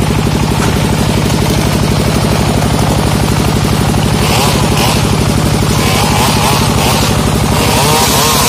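A small engine running steadily at low speed, with a fast, even putter.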